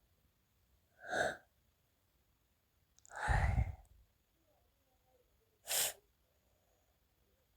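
Three sudden, harsh bursts of breath from a person sick with flu, a couple of seconds apart; the middle one is the longest and heaviest.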